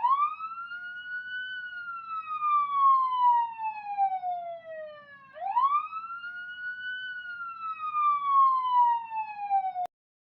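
Fire truck siren wailing through two long cycles, each a quick rise and then a slow fall in pitch, cutting off suddenly near the end.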